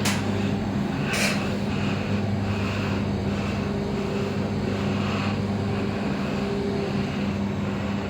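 Passenger lift car travelling up its shaft, heard from inside the car: a steady hum with a faint sound repeating every half-second or so, and a click about a second in.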